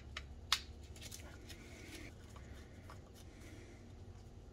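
Faint clicks and scrapes of a T10 Torx screwdriver working the screws on the metal housing of a Matco 1/4-inch-drive power ratchet during disassembly, with one sharp click about half a second in.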